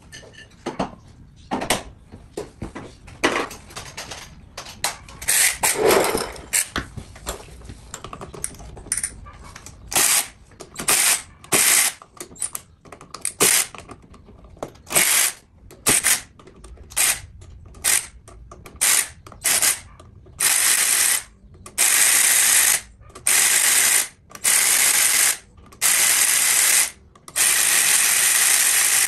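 Ratchet wrench clicking in repeated bursts as it backs out the clutch-cover bolts on a Yamaha YZ250. The clicks come short and scattered at first, then in longer runs of about a second each, roughly every second and a half near the end.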